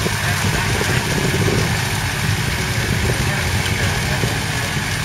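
Claas Arion 440 tractor's 4.5-litre four-cylinder diesel engine running steadily while driving a rotary tedder through cut grass.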